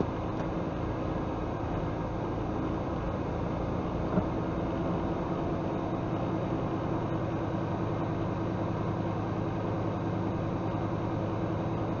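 Truck engine running steadily with tyre and road noise, heard from inside the cab, and one small knock about four seconds in.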